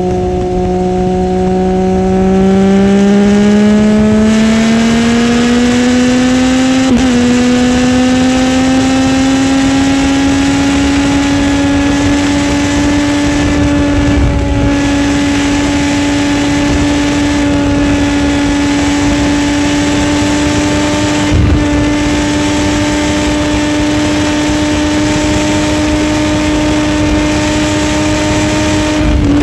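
Motorcycle engine running hard at high speed: its pitch climbs steadily over the first several seconds as the bike accelerates, then holds level at a steady high cruise. Wind rushes over the bike throughout.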